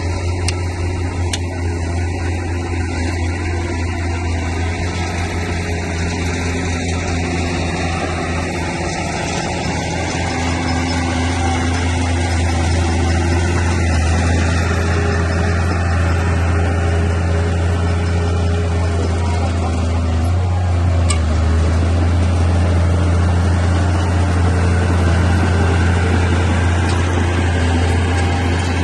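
Bulldozer's diesel engine running steadily with a deep, even hum, growing somewhat louder about halfway through.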